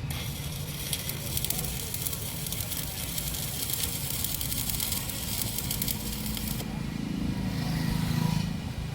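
Electric arc welding on a transformer's steel tank, crackling steadily, cutting off about six and a half seconds in; a low hum follows near the end.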